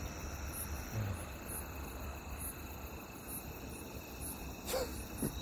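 Crickets chirping steadily, a high-pitched chirp repeating about twice a second. A short sound gliding downward in pitch comes near the end.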